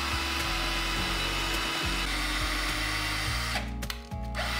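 Cordless drill boring into the ceiling to set curtain-rod anchors, running steadily, stopping about three and a half seconds in and starting again half a second later.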